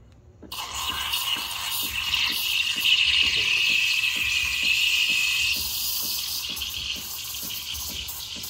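Espresso machine steam wand hissing steadily as steam is let out, opened up about half a second in; the hiss changes in tone about five and a half seconds in. A faint regular ticking, about three a second, runs underneath.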